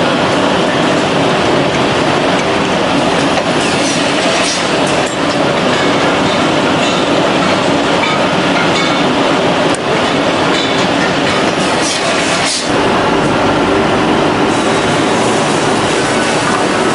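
FK-610BL semi-automatic finger joint machine running, a loud steady mechanical noise broken by a few sharp knocks.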